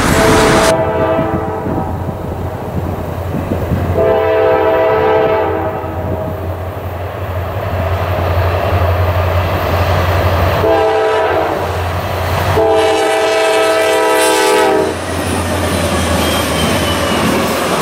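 Diesel freight locomotive's air horn sounding the grade-crossing signal as the train approaches: long, long, short, long, each blast a chord of several notes. A steady low engine rumble runs underneath, and near the end the locomotives pass close by with engine and rail noise.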